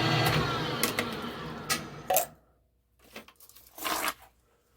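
Metal lathe motor switched off and running down, its hum fading out over about two seconds, with several sharp metallic clicks. A few short clinks and rustles of handling follow near the end.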